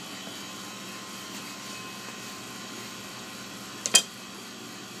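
Steady kitchen hum, with a sharp double click about four seconds in: a knife knocking as the tuna loin is cut.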